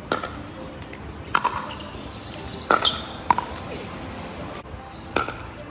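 Pickleball rally: paddles hitting the hollow plastic ball in sharp pops, about five in all, roughly a second or so apart.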